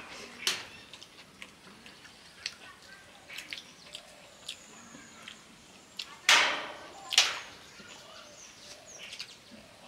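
Close-up mouth sounds of people eating biryani by hand: scattered wet lip smacks and clicks, with two louder smacking sounds about six and seven seconds in.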